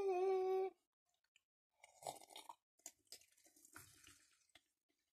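A child's drawn-out 'mmm' sound trails off within the first second. Then come faint chewing noises, with scattered small mouth clicks and crackles as candy is eaten.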